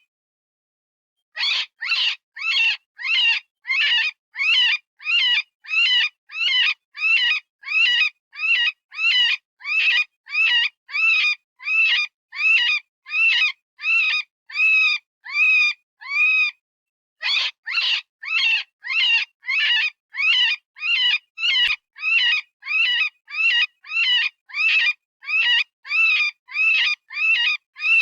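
Software-generated rabbit distress call, the scream used in predator calling: a long string of short, high, wavering cries, each rising and falling in pitch, repeating a little under twice a second. It starts after about a second of silence and breaks off once briefly about two-thirds of the way through.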